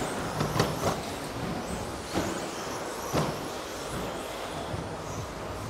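Electric 1:10 off-road RC trucks racing: a steady buzz of motors and tyres from the pack, with a few sharp knocks about half a second, two seconds and three seconds in.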